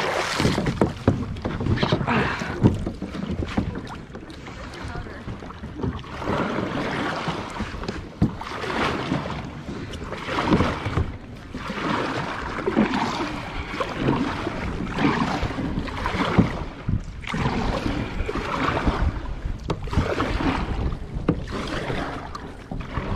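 Double-bladed kayak paddle stroking through calm water, a swishing splash every second or two in a steady rhythm as the blades dip on alternate sides.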